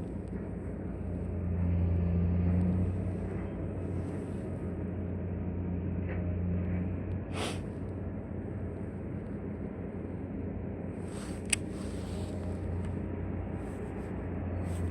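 Steady low engine drone with a constant hum, swelling briefly about two seconds in, with a single sharp click about two-thirds of the way through.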